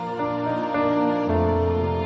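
Slow, sad background music of held notes that change every half second or so, with a deep bass note coming in about two-thirds of the way through.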